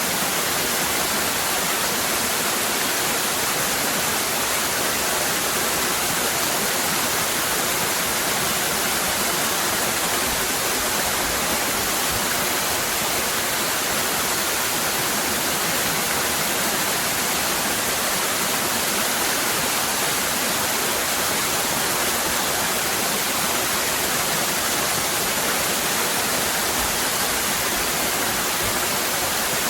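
Cascading waterfall: a steady, unbroken rush of falling water.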